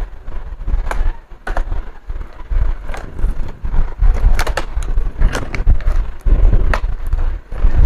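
Irregular clicks and knocks of a laptop and its plastic parts being handled on a workbench, over a low, uneven rumble.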